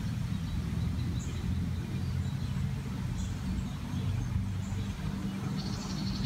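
Outdoor ambience: a steady low hum and rumble, with short high bird chirps every second or so and a quick run of chirps near the end.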